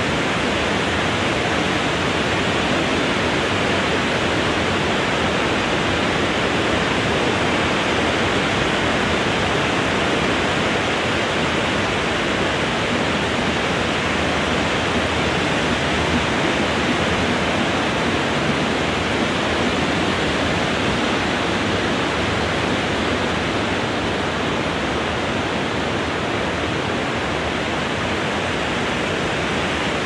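Wind blowing through trees: a steady, even hiss that holds the same level throughout, without distinct gusts.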